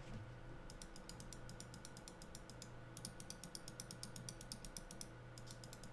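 Logitech G502 Hero gaming mouse's left and right main buttons being clicked in quick succession, many small sharp clicks a second, with a brief pause about three seconds in.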